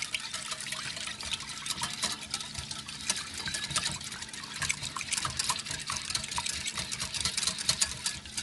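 A whisk beating milk, egg and oil in a bowl: rapid, continuous clicking of the whisk against the bowl over the slosh of the liquid.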